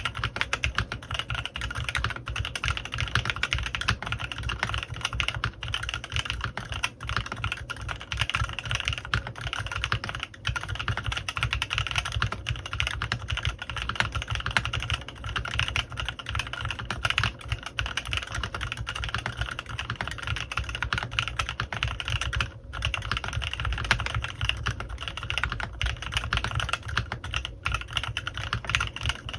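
Continuous fast typing on a CannonKeys Rekt1800 custom mechanical keyboard with stock Kailh x Swagkeys Lavender prototype switches and PBTfans Resonance PBT keycaps: a dense stream of keystroke clacks, with brief pauses about ten and twenty-two seconds in.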